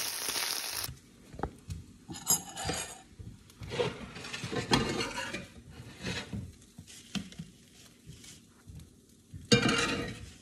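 Scrambled eggs sizzling in a cast iron skillet while a metal spatula chops through them, cutting off about a second in. Then a metal spoon scrapes and clinks against the cast iron in separate strokes as the eggs are scooped out, with a louder scrape near the end.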